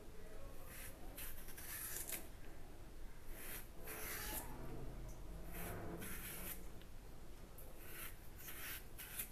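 Raw green banana being peeled with a knife: a series of soft, short scraping strokes at irregular intervals as the blade and fingers strip the skin.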